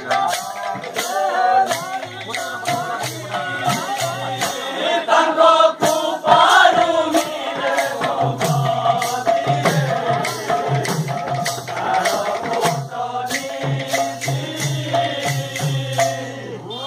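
A kirtan group of men singing a devotional chant together, with double-headed barrel drums (khol) and hand cymbals beating a steady rhythm under the voices.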